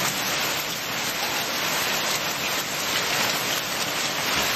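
Steady downpour of rain, an even hiss of drops hitting the ground and nearby surfaces.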